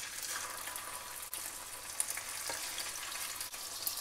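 Pieces of desalted salt cod (bacalao) sizzling as they fry in hot oil in a nonstick pan: a steady, even hiss with fine crackling.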